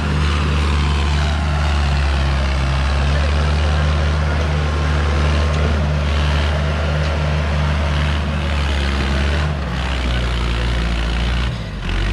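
Mahindra Arjun 605 tractor's diesel engine running steadily under load as it pulls a trolley heaped with sand, with a regular pulsing throb; it eases off briefly near the end.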